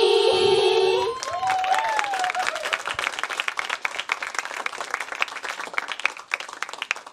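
The last sung note of a J-pop idol song, held by several voices over the backing track, ends about a second in; then an audience applauds, the clapping thinning out toward the end.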